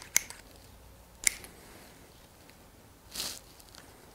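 M1895 Nagant revolver being unloaded by hand: two sharp, ringing metallic clicks about a second apart as the cylinder is turned and the ejector rod pushes spent brass cases out, then a softer scrape of handling about three seconds in.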